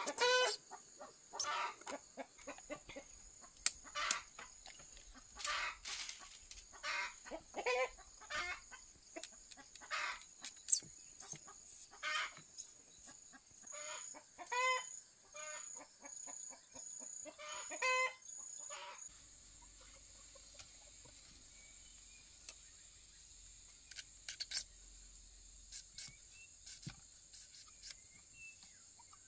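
Chickens clucking and calling in a string of short calls, which thin out and stop about two-thirds of the way through. A steady high-pitched trill sits underneath.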